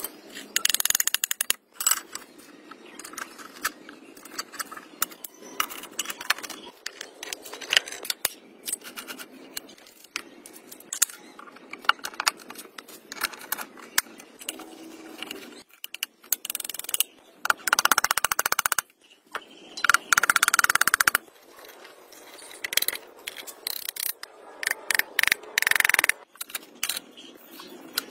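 Steel tractor gearbox parts being handled and fitted by hand: sharp metal clicks and knocks, with a few louder scraping stretches of a second or so as gears, shafts and shift forks go into the cast-iron housing.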